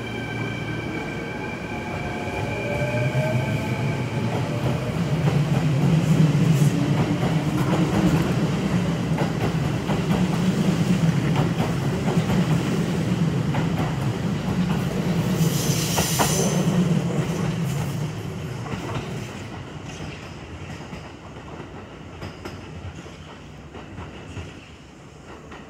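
Kintetsu 9020-series and 8600-series electric train pulling out of the station. Its motors whine and climb in pitch as it gathers speed, then the wheels rumble and clack past over the rail joints, with a brief sharp screech about two-thirds of the way through. The sound fades away as the train leaves.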